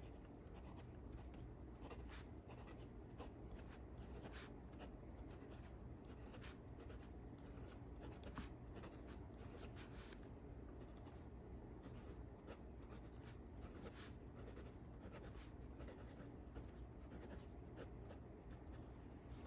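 Ranga Salmon fountain pen's medium nib writing on lined notebook paper: faint scratching of the nib across the paper, stroke after stroke.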